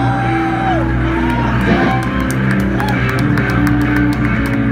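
Rock band playing live: electric guitars and bass holding long notes over drums, with frequent cymbal hits.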